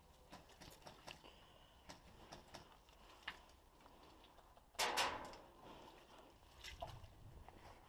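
Scattered faint clicks and taps, with one louder sharp knock about five seconds in.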